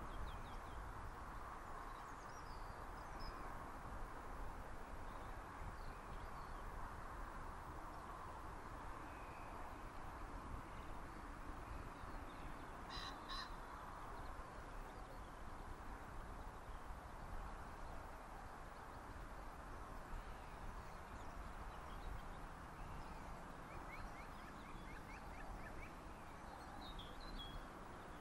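Birds calling over steady faint outdoor background noise: two short calls about halfway through, and small birds chirping near the end.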